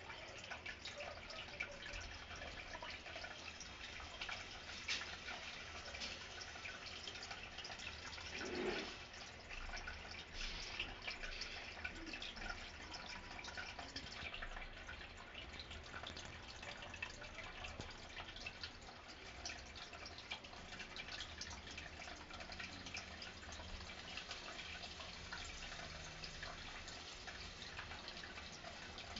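Water trickling and dripping steadily in a home aquarium, a constant run of small splashes and drops. A brief louder low sound comes about nine seconds in.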